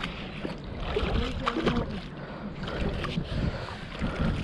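Water sloshing and splashing as a heavy object is hauled from a canal, over a low, irregular rumble on the microphone, with scattered short knocks.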